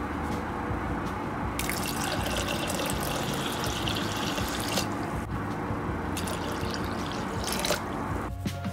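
Warm water poured from a glass into a stainless steel pot of dry mixed lentils, splashing onto them. Two pours: the first starts at about one and a half seconds and lasts about three seconds; the second, shorter, starts at about six seconds.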